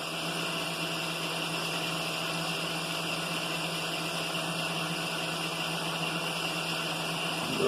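Milling machine running steadily with a boring head and bar turning in the spindle, during the final boring cut: an even motor hum with a constant hiss over it.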